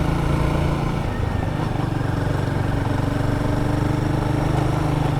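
Royal Enfield Guerrilla 450's single-cylinder engine running steadily at low revs while the motorcycle is ridden, its note wavering briefly about a second in before settling again.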